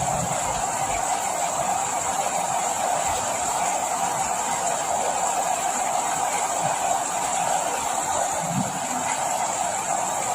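Steady rain falling, an even hiss without a break, with a few faint low thuds.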